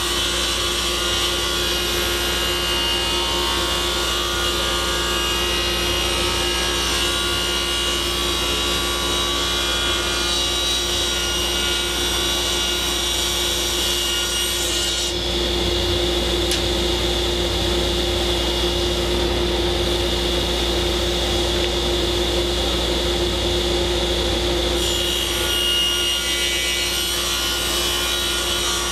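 Table saw running steadily while it rips a thin cedar strip off the edge of a board for strip-canoe planking.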